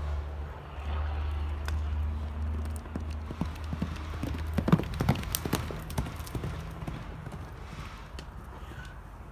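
A horse's hooves drumming on a packed dirt track as it runs past, the hoofbeats loudest about halfway through and then fading as it moves away. A low steady rumble sits under the first half.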